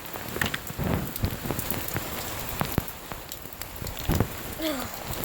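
Heavy hurricane rain falling, with many irregular drop hits ticking close by and a sharper knock about four seconds in.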